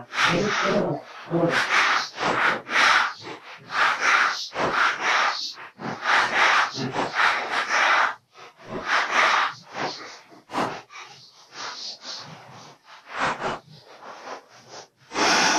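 Freshly sawn pine boards being taken off the cant on a band sawmill: a run of irregular wood-on-wood scraping and knocking noises, each short, with small gaps between them.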